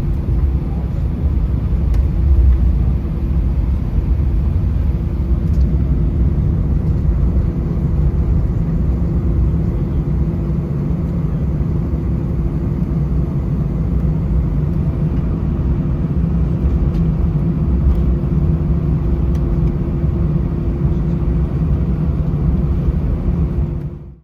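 Cabin noise inside an Airbus A320 after landing: a steady low rumble with a constant hum from the idling engines and airframe as the aircraft taxis. It fades out sharply at the very end.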